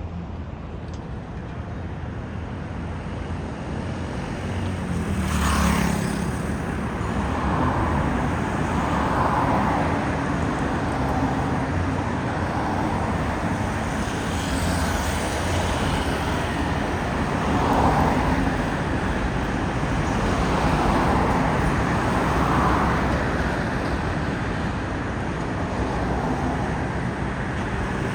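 Road traffic noise: vehicles passing on a street, steady and swelling a little as cars go by.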